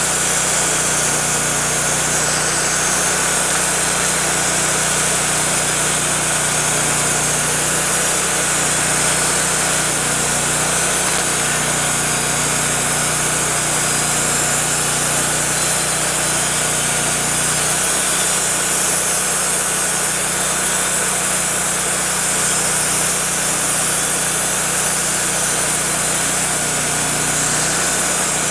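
Wood-Mizer LT40 portable band sawmill running steadily and loudly, its engine and turning band blade giving a steady whine over a hiss. The low hum shifts slightly a little past halfway.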